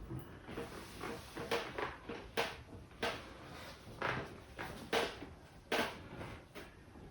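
Hand strikes of an Indian head massage: a barber's hands slapping and patting the client's head and shoulders in short, sharp, irregular strikes, about one or two a second.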